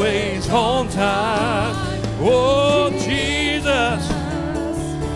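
Gospel music: a solo voice singing long held notes with a wide vibrato over sustained low instrumental chords.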